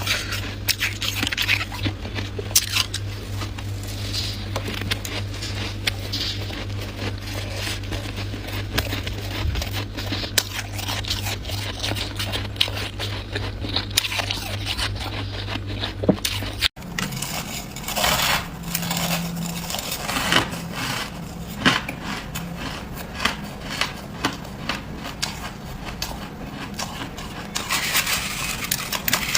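Freezer frost crunching and crackling as it is scraped and chewed close to the microphone, in many small irregular crunches. A steady low hum sits under the first part and cuts off suddenly about 17 seconds in.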